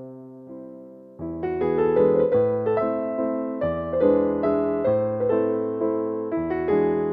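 Background piano music: a soft held chord fading, then a fuller passage of notes and chords starting about a second in.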